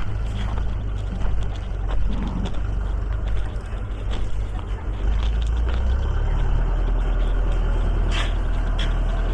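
A motor running steadily with a low hum that grows louder about five seconds in, with scattered clicks and knocks over it.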